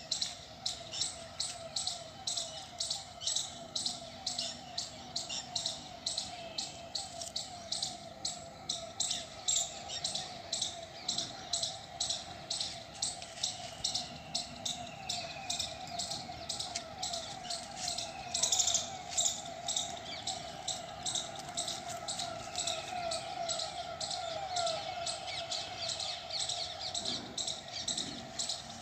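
Birds chirping outdoors, one sharp chirp repeated steadily about three times a second, with a steady rippling call lower down and a few short sliding calls from other birds.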